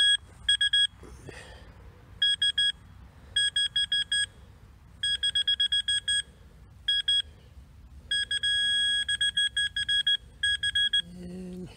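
A metal-detecting pinpointer beeping as it is pushed through loose dug soil. It gives short runs of rapid beeps and one longer held tone about two-thirds of the way through, the signal that there is metal in the dirt.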